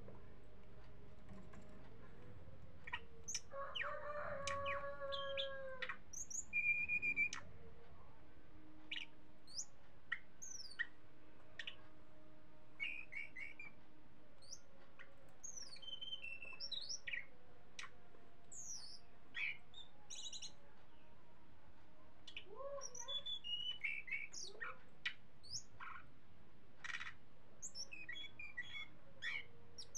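Caged tledekan gunung, a blue-and-orange songbird, singing a varied song of short chirps, whistles and quick trills with frequent pauses. The song is loudest and fullest a few seconds in.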